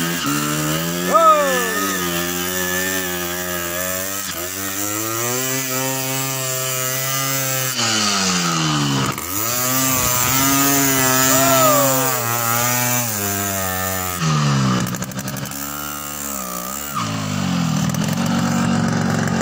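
Yamaha RX-Special two-stroke motorcycle engine revving hard while hauling a load of teak logs, its pitch rising and falling as the throttle is worked, and dropping low twice in the second half.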